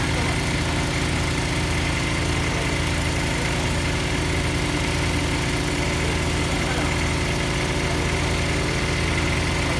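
Engine of a small trailer-mounted borehole drilling rig running steadily at an even speed.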